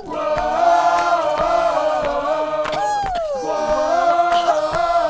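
Many voices holding a wordless chord that shifts now and then, with one voice sliding down in a wail about three seconds in.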